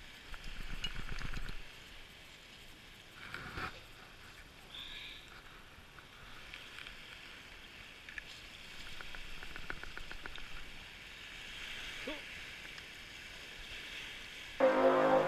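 Small waves lapping against an icy lakeshore, with faint rustles and clicks from handling a plastic bottle of fishing attractant and a quick run of faint ticks partway through. Music starts near the end.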